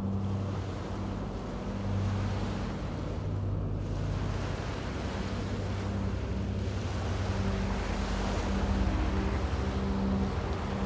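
Ocean waves and wind washing steadily, with a low, steady hum or drone underneath.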